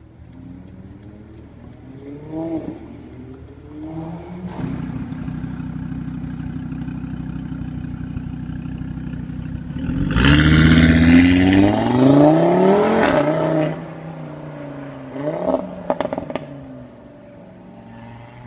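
Audi RS3 8V's turbocharged five-cylinder engine revving: two short blips, a steady drone, then a loud run up through the revs as the car accelerates. Near the end a quick rev blip comes with a few sharp exhaust crackles.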